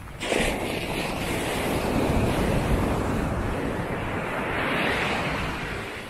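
Surf rushing up a sandy beach, coming in suddenly just after the start, swelling twice and easing off near the end.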